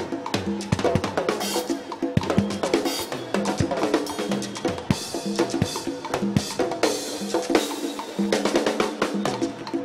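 Drum kit played in a fast, busy solo: rapid snare and tom strokes with rimshots, bass drum hits and several cymbal crashes.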